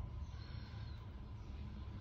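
Steady low background rumble with a faint constant high tone and no distinct event: room noise.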